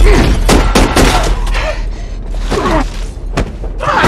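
Hand-to-hand fight between two men in a train carriage: a run of heavy blows and bodies slamming into the walls, with short strained grunts, over a low steady rumble.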